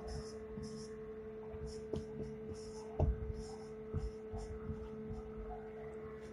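Marker pen squeaking and scratching on a whiteboard in short strokes as characters are written, with a few light taps of the pen on the board, over a steady electrical hum.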